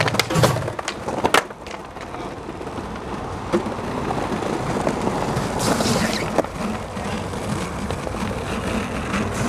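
Skateboard: a few sharp clacks of the board and wheels in the first second and a half, then a long continuous scrape of the trucks grinding along a concrete ledge, loudest about six seconds in.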